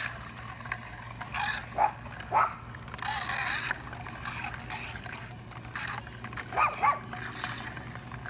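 A dog whimpering and yipping, with a few short high-pitched calls about two seconds in and again near seven seconds.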